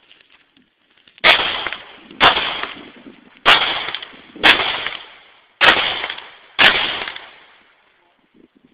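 Smith & Wesson M&P Pro semi-automatic pistol firing six shots about a second apart, starting about a second in, each sharp report followed by a trailing echo.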